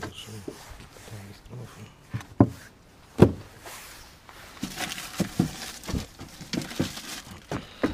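Rummaging through discarded items: hard objects being shifted, with two sharp knocks in the first half, then the rustle and crinkle of a plastic carrier bag being handled, with many small clicks.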